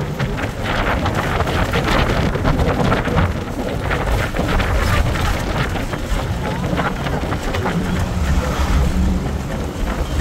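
Inside a moving coach bus: steady engine and road rumble, with frequent rattles and knocks from the cabin. The low rumble swells in the second half.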